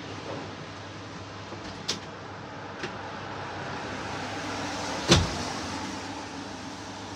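Steady running noise of a commercial rotisserie chicken grill and its kitchen, with two light clicks about two and three seconds in and one loud knock about five seconds in.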